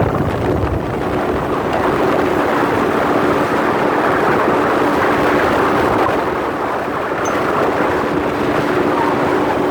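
Motorboat under way, its engine running steadily at speed: a constant droning tone over a steady rush of noise.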